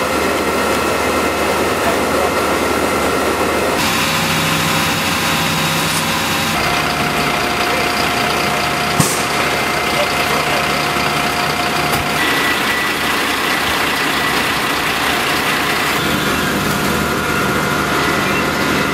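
Fire engines' diesel engines running steadily and loudly, the sound shifting abruptly every few seconds, with a brief click about 9 seconds in.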